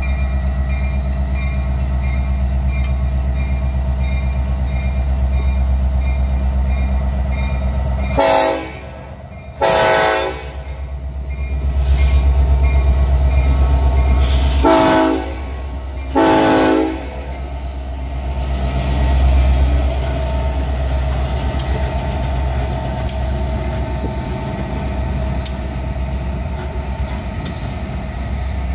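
Diesel locomotive engines rumbling at close range as a Ferromex EMD SD70ACe rolls past. A locomotive horn sounds four blasts in two pairs, about 8 and 15 seconds in.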